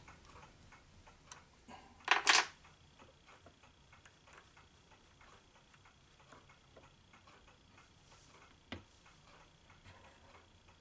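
Hand work on a stopped Taig micro lathe: a brief loud metallic scrape about two seconds in as the chamfer tool is set in the tool post, then faint ticking and handling sounds, with a single sharp click near the end.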